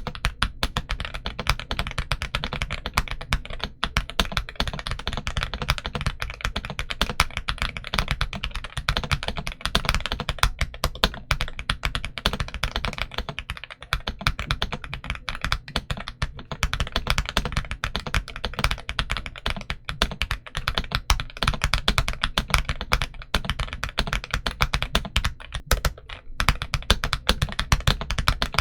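Kzzi i75 V2 low-profile mechanical keyboard with White Rain switches being typed on fast and without a break: a dense, continuous stream of key presses.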